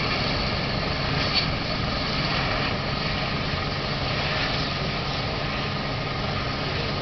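Red Arrows BAE Hawk T1 jet trainers taxiing, their Rolls-Royce Turbomeca Adour turbofans running at low taxi power with a steady whine over a low rumble.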